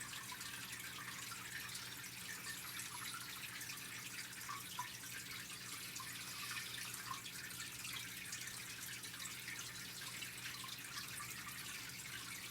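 Faint room tone: a steady hiss with a low electrical hum and a few small scattered ticks.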